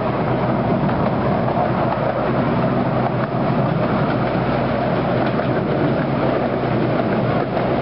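Open passenger cars of a miniature park railway rolling along the track: a steady running noise of wheels on rails with a low hum under it.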